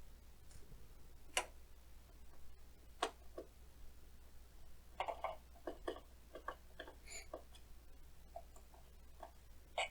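Faint, scattered light clicks and taps of a Phillips screwdriver working the mounting screws out of an organ's power supply and the loose screws being handled, with a quick run of small clicks around the middle.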